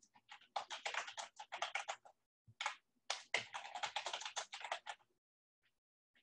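Typing on a computer keyboard: two quick runs of key clicks with a short pause between, stopping about five seconds in.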